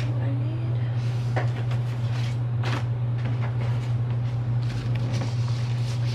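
A steady low hum runs throughout, with scattered light clicks and rustles of sticker sheets being handled.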